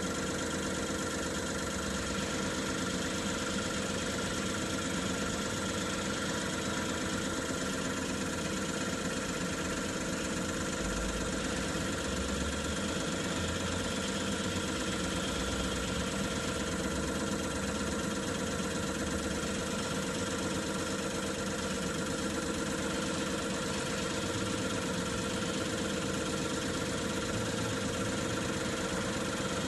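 Common rail diesel injector test bench running steadily through a test: its drive motor and high-pressure pump give a constant mechanical hum with several steady tones.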